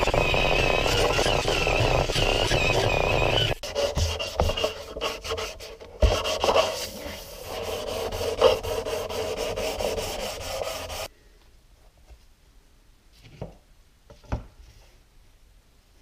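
An angle grinder with a sanding disc runs against the live edge of a wooden slab, its whine wavering under load, and stops about three and a half seconds in. After that comes a stretch of irregular rubbing as a cloth is wiped over the sanded wood, which ends suddenly about eleven seconds in, leaving only two faint taps.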